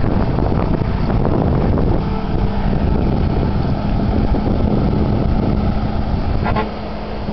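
Laverda LB 12.70 large square baler running behind its tractor, a loud, steady mechanical din. A steady hum joins about two seconds in, and near the end a brief knock comes as the sound drops a little.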